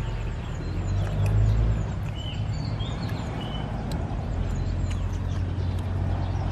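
A steady low hum in the background, with a few short, quick bird chirps in the middle.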